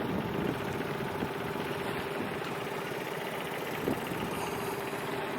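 A small boat's motor running steadily at low speed with a constant hum, over a wash of water and wind noise.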